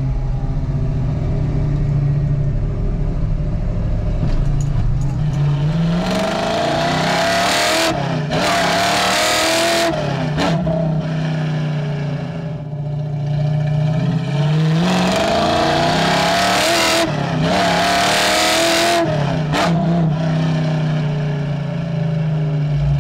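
1965 Ford Mustang's 289 V8 through full-length headers, an X-pipe and Black Widow Venom 250 mufflers, pulled hard through the gears of a four-speed manual. The exhaust note climbs in pitch and gets loud in two runs, about six and fifteen seconds in, each broken by a shift, and settles back to a steady cruise between them and near the end.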